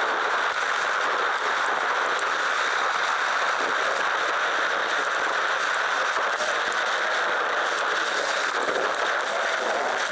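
Wind and tyre noise from a camera on a mountain bike's handlebars riding a gravel track, sped up by fast-forwarding into a dense, steady crackling hiss.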